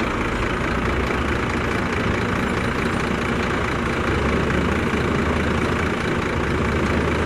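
Heavy diesel engine of construction machinery running steadily with an even low hum.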